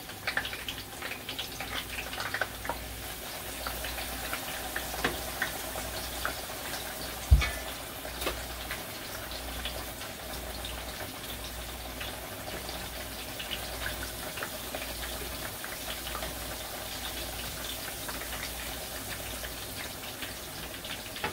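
Porgy fish frying in hot oil in a frying pan: a steady sizzle with scattered small crackles and pops. A single sharp knock sounds about seven seconds in.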